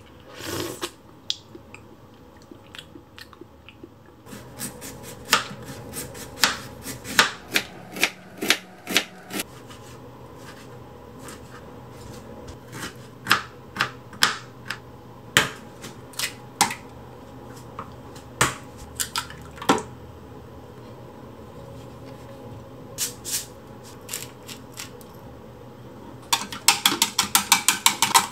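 A kitchen knife chopping broccoli on a plastic cutting board: irregular sharp knocks of the blade hitting the board. Near the end, eggs are beaten fast in a plastic measuring jug with a quick, even run of clicks.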